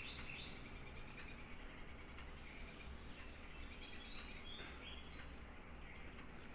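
Faint background noise with a low steady hum and a few brief, faint high-pitched chirps about five seconds in.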